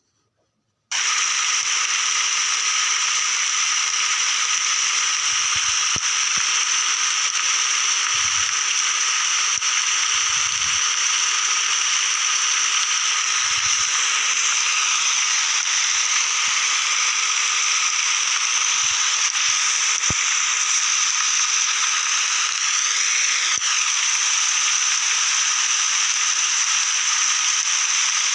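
Steady rain falling on a forest, a dense even hiss that starts abruptly about a second in and holds unchanged.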